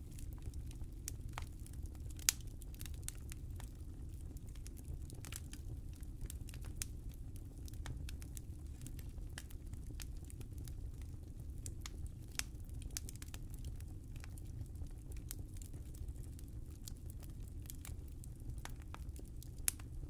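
Wood fire burning in a fireplace, crackling with many small irregular pops over a low steady rumble of the flames. Two sharper, louder pops stand out, about two seconds in and just before the end.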